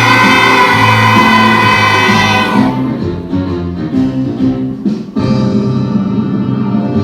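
Children's choir holding the final sung note of a song over backing music; the voices stop about two and a half seconds in and the instrumental music plays on, fading out at the end.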